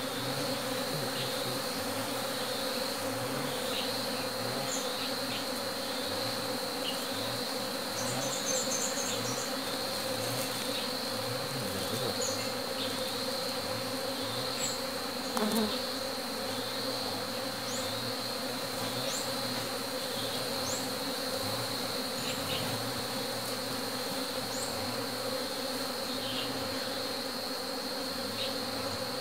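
A mass of honeybees buzzing in a steady drone as they are shaken from a sack into a smoked log hive to merge colonies.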